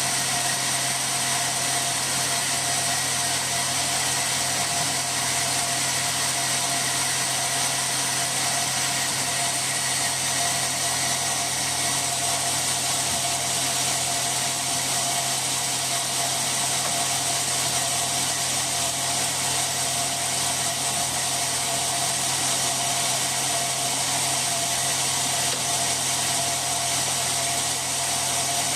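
Sawmill machinery running steadily, a constant mechanical drone with a few fixed whining tones and no change in load.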